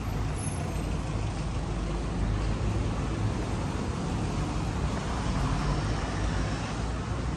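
Road traffic on a city street: motor vehicles running and passing, a steady rumble of engines and tyres.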